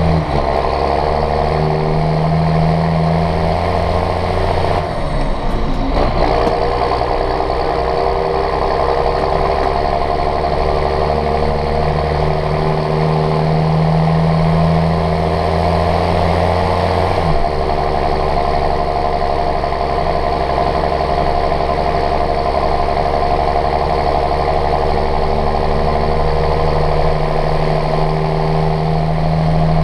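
John Deere 6620 tractor's six-cylinder diesel engine running steadily under way, heard from inside the cab. Its note briefly dips and picks up again about five seconds in, then settles to a slightly different steady pitch about halfway through.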